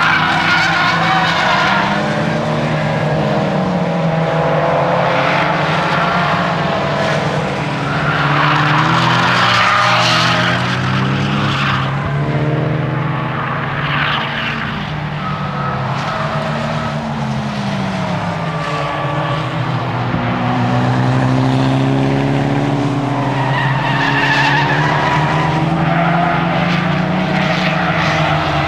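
Nissan S15 Silvia's four-cylinder engine driven hard, revving up and dropping back again and again through the gears. The tyres squeal through the corners several times, near the start, around a third of the way in, and again late on.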